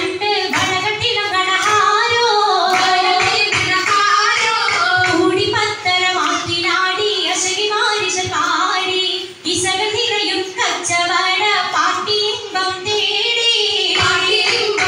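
Singing of an oppana song (a Mappila song): high voices carrying a melody over a steady musical accompaniment, with a few sharp beats.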